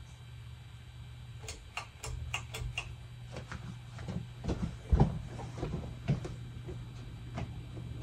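A Hunter Original ceiling fan's PSC oil-bath motor running with a steady low hum. A scatter of light clicks and knocks runs over it, with a louder thump about five seconds in.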